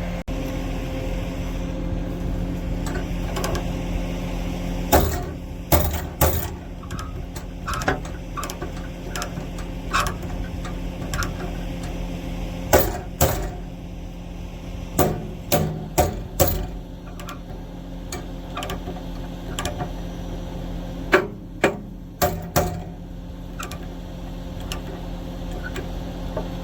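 Steel tie-down chains clanking and rattling as a heavy dozer is chained down on a trailer, in irregular clusters of sharp metal knocks. A diesel engine idles steadily underneath.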